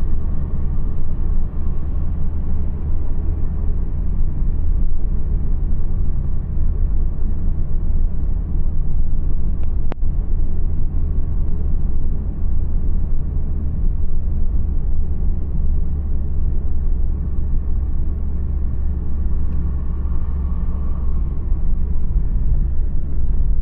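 Steady low rumble of a car cruising at highway speed, heard from inside the cabin: engine and tyre noise on the toll road's surface. One brief click comes about ten seconds in.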